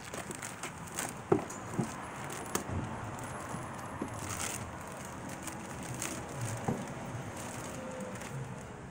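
Cardboard box and plastic wrapping being handled as an electric griddle is slid out of its box and its plastic bag pulled off. The result is rustling and crinkling with scattered knocks and clicks, the sharpest about a second in.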